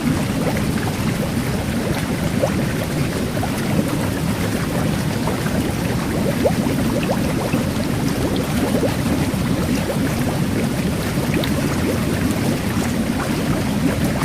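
Jet bath water churning steadily, with fine carbonated-water bubbles fizzing through it in many small scattered pips.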